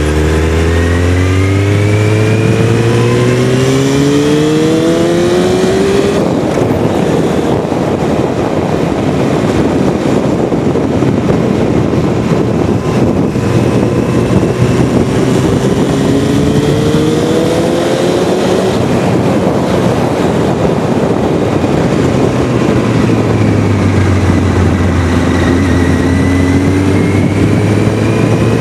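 Sport motorcycle engines accelerating hard, their pitch climbing through the revs in the first few seconds, again about two-thirds in and again near the end, with a dense rush of wind and road noise in between.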